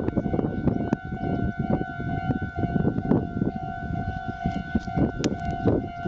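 Railroad crossing's electronic warning bell ringing "kan-kan" steadily at about two strokes a second, over a loud, uneven low rushing noise.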